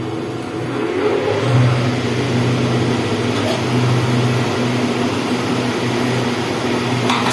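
Slicer-planer machine running steadily, its motor giving a constant low hum under an even whir.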